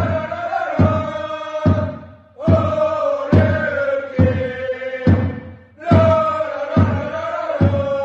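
Football supporters chanting a goalkeeper's chant in unison, the player's name followed by a long run of 'la la la', over a steady drum beat a little more than once a second. The sung phrase breaks and starts again twice.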